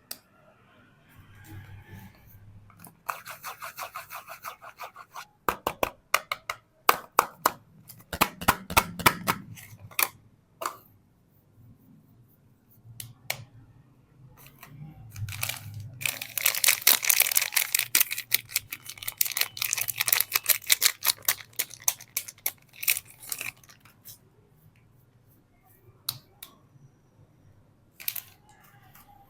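Soap packaging being opened by hand: crinkling and tearing wrapper with quick clicking and crackling in spurts, and a longer stretch of dense crinkling in the middle.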